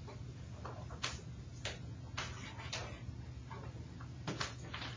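Pencil lead scratching on paper in short, irregular strokes while drawing block letters, about eight quick scratches over a low steady hum.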